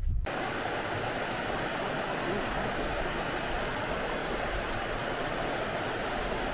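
River water rushing over rocks and rapids in a steady, even hiss, starting abruptly a moment in after a brief low rumble.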